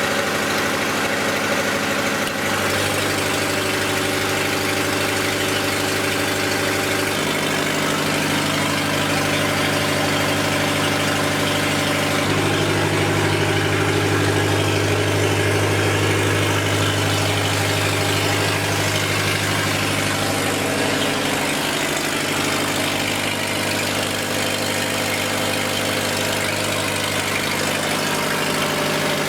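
Lister diesel generator set running steadily under a test load of electric heaters of about 10 kW. Its note shifts a few times, about 2, 7, 12 and 21 seconds in.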